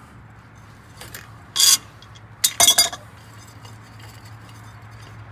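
Steel hand tools on the axle end: an adjustable wrench clinking and scraping on the bolt of a homemade axle bearing puller. A few light clinks about a second in, a loud short scrape-clank just after, and a quick cluster of clanks just before the three-second mark.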